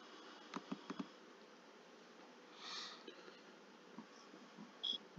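Quiet room tone with a few soft clicks about half a second to a second in, a short breathy hiss near the middle, and a brief high tone near the end.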